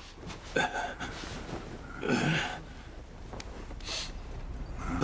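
A man's breathy sighs or exhales, a short one about half a second in and a longer one about two seconds in, then a brief soft rustle of bedclothes about four seconds in.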